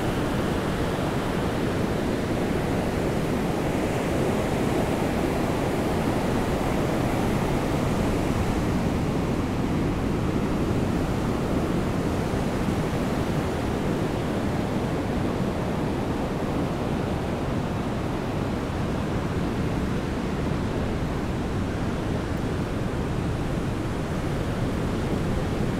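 Steady rushing noise of surf breaking on a sandy beach, mixed with falling rain.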